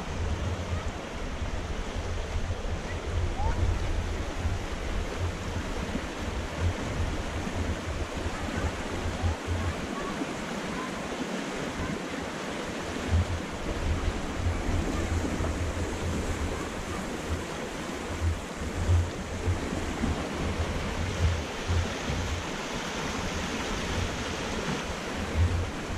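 Fast mountain creek rushing over rocks in a steady roar of whitewater, with gusts of wind rumbling on the microphone.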